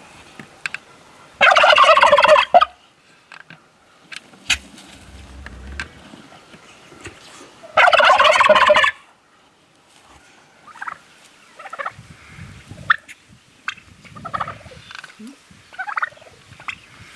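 A bronze turkey tom in full display, tail fanned, gobbling twice. Each gobble is a loud, rapid, warbling call about a second long, about six seconds apart. Shorter, softer calls follow in the last few seconds.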